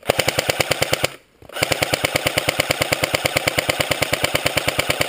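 Airsoft gun firing full-auto, a rapid even rattle of about fourteen shots a second: a short burst of about a second, then after a brief pause a longer sustained burst.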